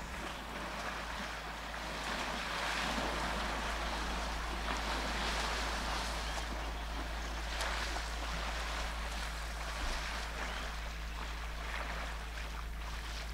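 Water sloshing and splashing as young elephant bulls wade and push through a muddy waterhole, heard as a steady rushing noise with a few brief stronger splashes.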